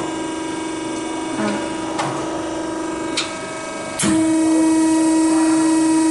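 Steady machine hum from a Cummins PT injector test bench, with a few light metallic clicks as the injector and its fittings are handled. About four seconds in, the hum jumps louder and holds steady.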